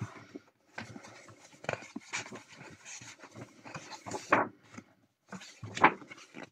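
Pages of a colouring book being flipped by hand: a run of paper rustles and swishes, with louder page turns about four and six seconds in.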